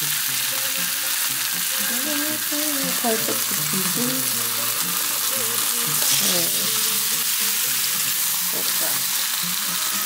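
Slices of ham frying on a hot griddle: a steady, even sizzle.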